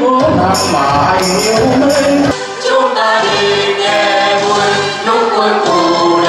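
Mixed choir of men and women singing a song together through handheld microphones.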